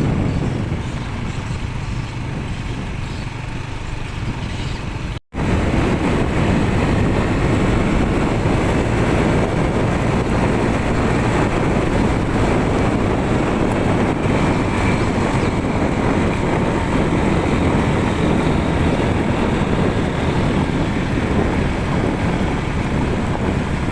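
A small engine running steadily under wind noise on the microphone. The sound cuts out for an instant about five seconds in, then carries on a little louder.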